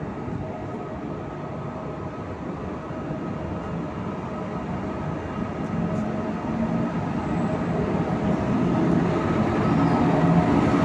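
A train running on the rails, its rumble growing steadily louder as it comes closer, with a faint steady tone over it.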